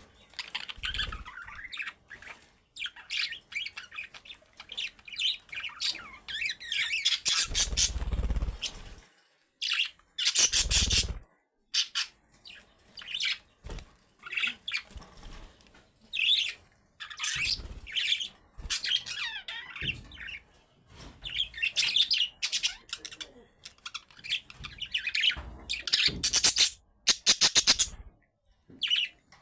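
Budgerigars chirping and warbling in a steady chatter of quick, overlapping calls, with a few louder harsh bursts in between.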